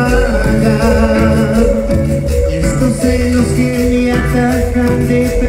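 A live Latin band plays on stage: electric guitars, keyboards and drums over a steady, repeating bass line.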